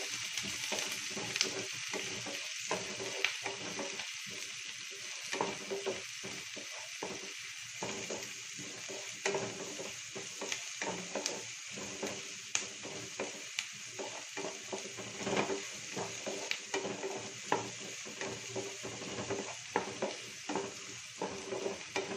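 Chopped onions, green chillies and curry leaves sizzling in oil in a frying pan, stirred with a spatula that scrapes and taps against the pan at an irregular pace. The onions are being sautéed until they turn brown.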